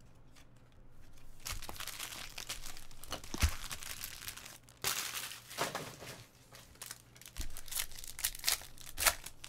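Foil trading-card pack crinkled and torn open by hand: irregular crisp crackling and ripping, with a single dull thump about three and a half seconds in and a quick run of sharp crackles near the end.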